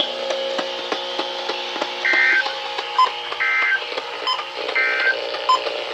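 NOAA Weather Radio EAS end-of-message data bursts: three short, raspy two-tone digital squawks about a second and a half apart, marking the end of a required weekly test. A steady background hum with faint ticking runs underneath.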